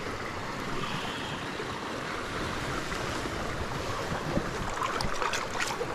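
Steady rush of a small creek's fast water running over rocks, with a few short sharp sounds near the end.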